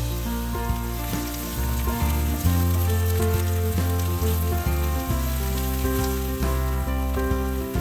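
Diced onion sizzling as it fries in hot oil in a cast-iron pan, under background music with a steady bass line.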